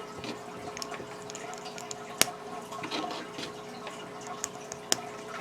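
Lego pieces being handled and pressed together: small plastic taps and rustles, with two sharp clicks, one about two seconds in and one near the end, over a faint steady hum.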